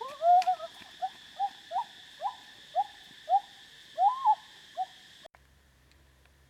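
An animal giving a run of short pitched calls, each rising quickly and falling back, about two a second, over a steady high hiss. Everything cuts off abruptly near the end, leaving only a faint low hum.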